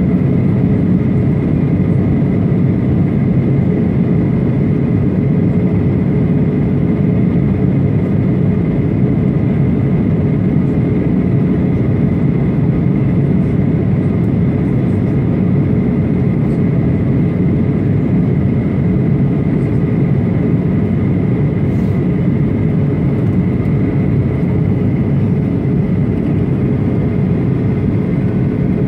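Steady in-flight cabin noise of a Boeing 737-800 heard from a window seat over the wing: the low drone of its CFM56-7B turbofan engines and the airflow, with a faint steady whine mixed in.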